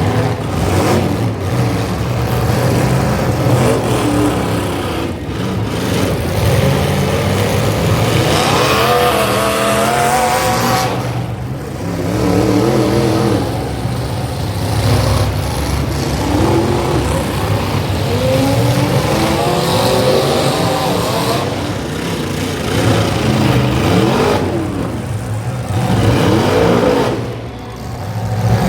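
Demolition derby car engines revving hard and dropping back again and again, several at once, their pitch rising and falling.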